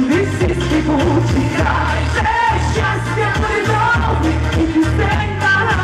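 A woman singing a pop song into a handheld microphone, amplified through a stage PA, over backing music with a steady beat and heavy sustained bass notes.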